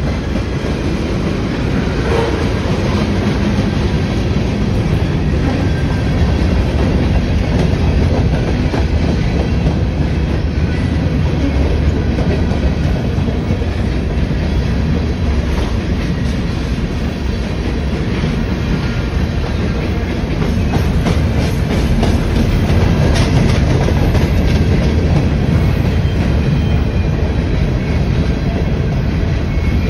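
Norfolk Southern freight train's tank cars and covered hoppers rolling past: a steady, loud rumble of steel wheels on rail, with clicking as the wheels cross the rail joints.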